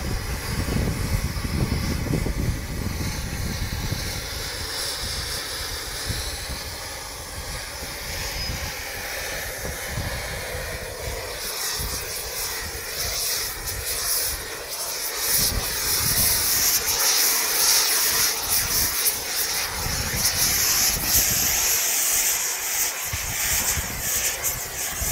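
Oxy-fuel gas torch flame hissing steadily as it heats the bitumen coating tape being wrapped onto a steel pipe. The hiss grows louder and brighter about halfway through.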